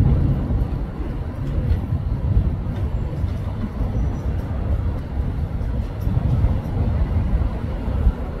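Low, uneven rumble of vehicle traffic.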